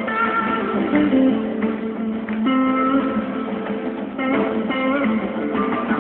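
A band playing live, with a guitar picking out a run of distinct notes and strummed chords. It has the thin sound of a recording with no highs or lows.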